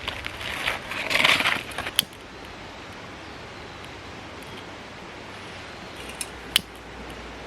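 Rustling and clattering of small objects being handled, ending in a sharp click about two seconds in; then a steady hiss, with one more sharp click near the end.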